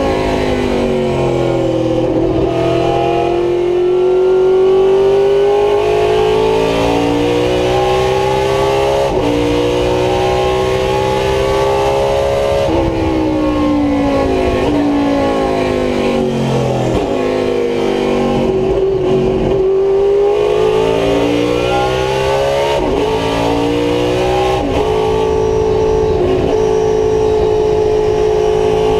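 GT-1 class V8 race car engine heard from inside the cockpit, pulling hard on track. The revs climb and drop sharply at several gear changes; midway the pitch falls away as the driver lifts and slows, then climbs again.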